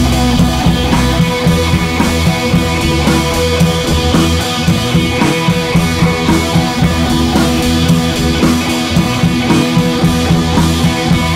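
Music with a steady drum beat and guitar, in a rock style.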